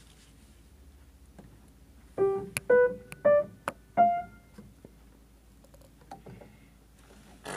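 Upright piano: about two seconds in, a handful of single notes are played one at a time, stepping upward in pitch, each left to ring and fade. Then the keys go mostly quiet, with a couple of faint notes later on.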